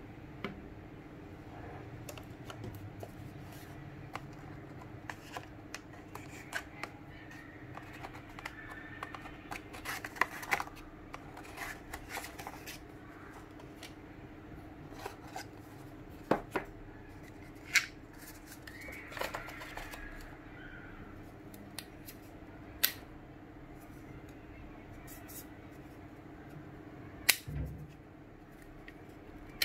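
Hands handling a smartphone and the plastic and cardboard parts of its box: scattered sharp clicks and taps with stretches of rustling, over a steady low hum.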